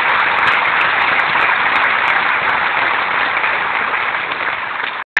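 Large audience applauding, a dense, steady sound of many hands clapping that eases slightly and then cuts off abruptly about five seconds in.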